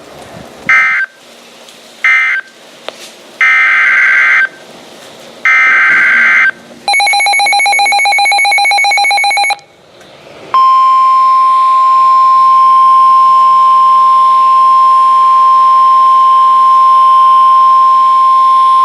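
Weather radio EAS alert sequence: a string of short warbling SAME data bursts, then a rapidly pulsing alert beep for about three seconds, then the steady 1050 Hz NOAA Weather Radio warning alarm tone held for about nine seconds, the signal that a new warning follows.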